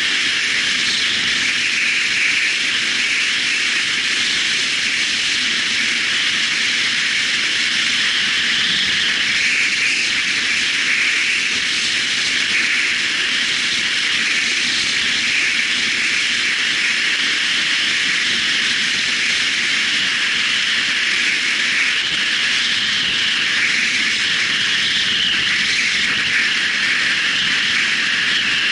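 Steady rush of wind and road noise from a motorcycle riding along at speed, even and unbroken throughout, with no distinct engine note standing out.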